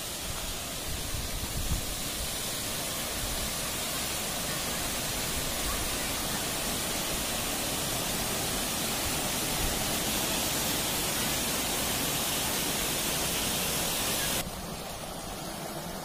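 Steady rush of a waterfall pouring over rock, an even hiss with no pitch to it. Near the end it cuts to a quieter, softer flow of water.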